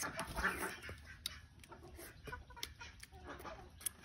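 Chickens clucking close by, most in the first second, followed by a few faint sharp clicks.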